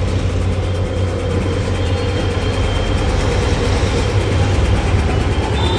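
A steady, loud low mechanical hum from a running machine, even throughout with no breaks.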